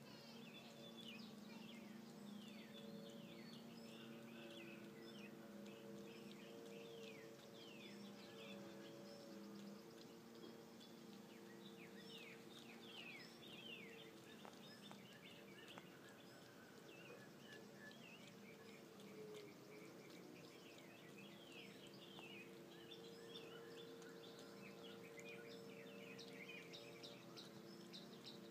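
Faint outdoor ambience: birds chirping in many quick falling notes, over a steady low hum.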